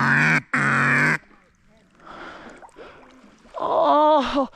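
Two loud, flat, honking duck-like quacks in quick succession at the start, then a short rising-and-falling vocal groan from a man near the end.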